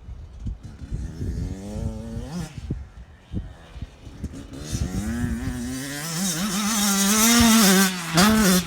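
A motor engine revving, its pitch rising and then held high and wavering, with a loud hiss building toward the end.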